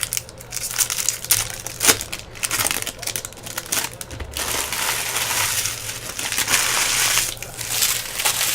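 Card-pack wrappers being crinkled and torn open by hand: sharp crackles at first, then a longer stretch of continuous crinkling.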